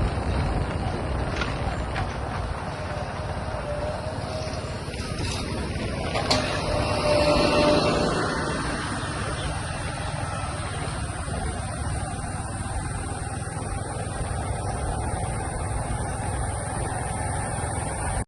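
Motorcycle on the move: steady engine rumble and wind rush on the microphone, with a louder swell about six to eight seconds in.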